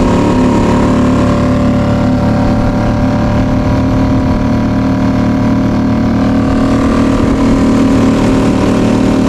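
Suzuki 2.5 hp four-stroke outboard motor running steadily, its engine note holding constant with no revving.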